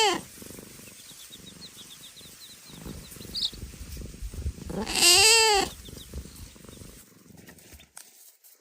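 A cat purring, a low rapid rumble that stops about a second before the end, broken by two loud drawn-out meows: one at the very start and one about five seconds in. A string of faint, high chick peeps comes between them.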